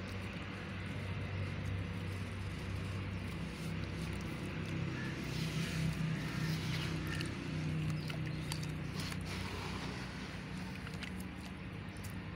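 Dry white cement crumbled and squeezed by hand in a plastic tub of water, with soft splashing and short gritty crackles, busiest around the middle. A steady low motor hum runs underneath throughout.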